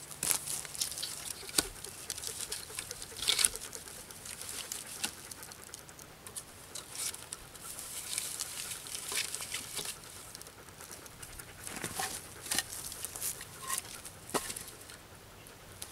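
Footsteps and crackling on twigs and dry forest litter, with scattered knocks and scrapes of wooden poles being set against a pole-wall shelter, the clearest knocks near the end.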